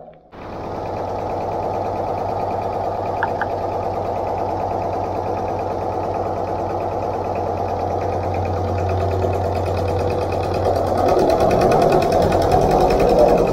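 Isuzu Forward truck's diesel engine running with a fast, steady clatter, cutting in suddenly just after the start. It gets louder and rougher near the end. This is the engine that has been hard to start.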